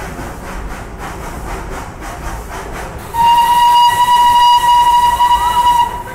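Darjeeling Himalayan Railway steam locomotive chuffing in a steady rhythm, then sounding its steam whistle in one long, loud blast of about three seconds starting about three seconds in.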